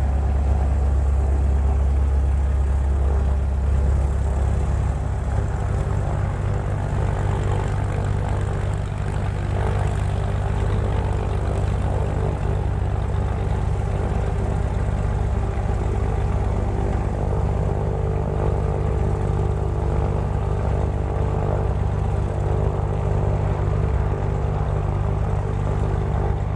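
Propeller airplane's engine running steadily with a low, even drone, a little louder for the first few seconds.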